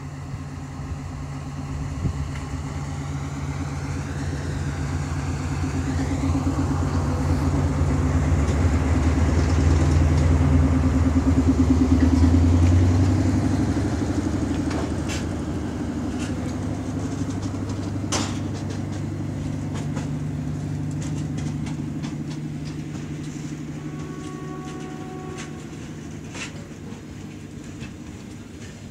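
A diesel rail vehicle approaches and passes close by on the track. Its engine grows louder to a peak about twelve seconds in, then fades as it moves away. A few sharp clanks come just after it passes.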